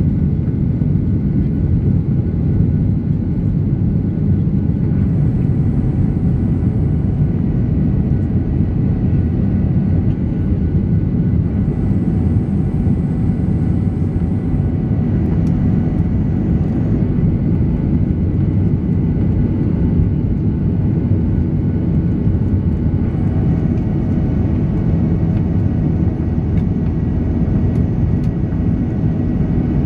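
Steady low roar inside the cabin of a Boeing 737-800 climbing after takeoff: its CFM56-7B engines and the rushing airflow, with a faint hum that fades in and out a few times.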